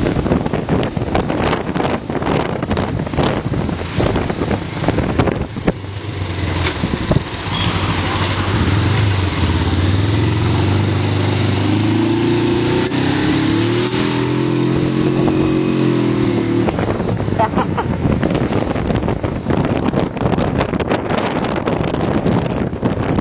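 Wind buffeting the microphone on a moving Suzuki 500 motorcycle. Partway through, the engine note comes through clearly, rising in pitch for a few seconds, holding steady, then dropping away suddenly as the wind takes over again.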